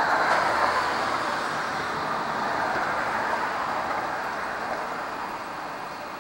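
Street traffic: a vehicle going past on the road below, its noise swelling about half a second in and then slowly fading.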